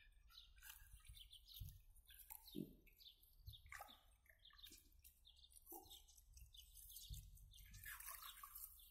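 Faint birdsong: many short, high chirps and whistles, some sweeping downward, repeating throughout.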